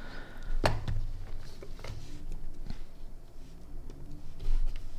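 Hands handling a small digital pocket scale and a folding knife on a desk mat: one sharp click just under a second in, then light clicks and rubbing as the scale is set down, its hinged lid opened and its buttons pressed.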